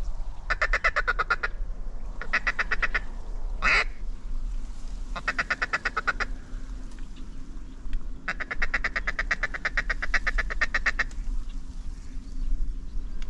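Mallard duck call blown in rapid, even feeding chuckles, in four runs about ten notes a second, the longest close to three seconds, with one louder single quack about four seconds in.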